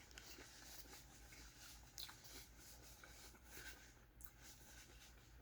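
Near silence: room tone with a low hum and a few faint, soft clicks.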